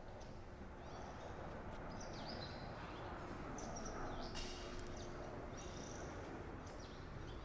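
Faint outdoor ambience: birds chirping in short calls about a dozen times over a steady low background noise.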